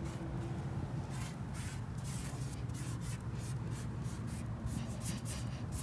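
Writing with a fingertip on a surface: a run of short, irregular rubbing strokes, over a steady low rumble.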